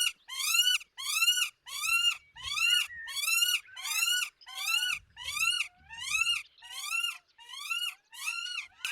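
Female northern goshawk calling over prey brought by the male: a steady series of high calls, each rising then falling, about two a second.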